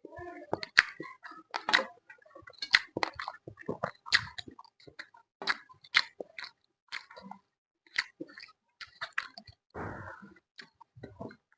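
Close-up chewing and biting of food: irregular crisp crunches and wet mouth clicks.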